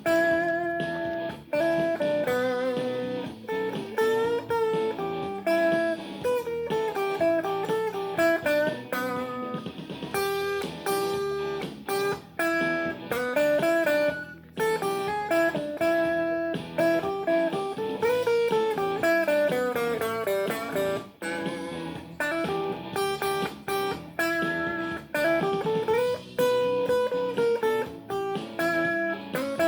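Blues guitar playing single-note lead lines, with notes bent up and down in pitch.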